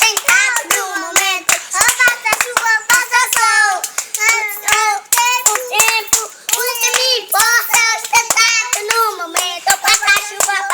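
A child singing a funk song unaccompanied, over quick hand claps at about four a second that keep the beat.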